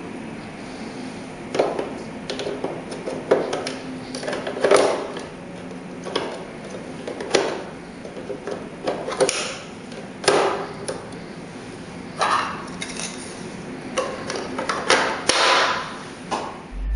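Hard plastic clicks and knocks from a TSC TC-series desktop label printer as its platen roller and front cover are fitted by hand. There are about a dozen irregular clicks over a steady low hum.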